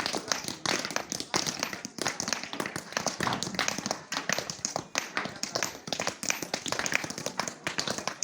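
Many irregular, overlapping knocks and taps of hand tools striking, several a second, with voices in the background.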